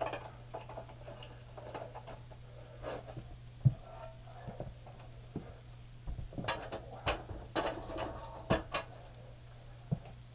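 Scattered light clicks and knocks of someone moving about and handling gear, thickest from about six to nine seconds in, over a steady low hum.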